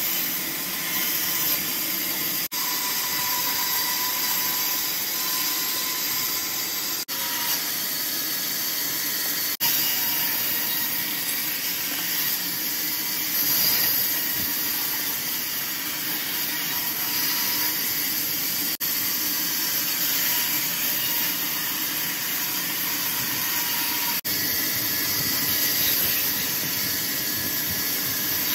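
Large industrial band saw running, its blade cutting through a log with a steady, high-pitched noise. The sound drops out very briefly a few times.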